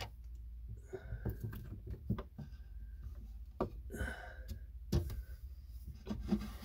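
Irregular knocks, scrapes and rustles of a heavy battery cable being pulled through and pushed behind a boat engine by hand, the cable and hands bumping against the engine and its mounts.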